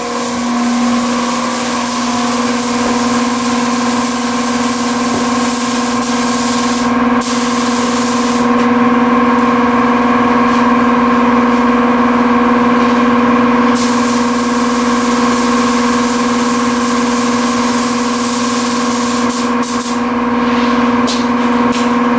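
Compressed-air paint spray gun hissing as paint is sprayed onto a car body, with a steady machine drone running underneath. The hiss drops out briefly a few times.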